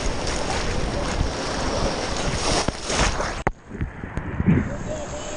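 Rushing whitewater of a river rapid, a loud steady roar of water. About three and a half seconds in it cuts off sharply into a dull, muffled sound with the hiss gone, then brightens again near the end.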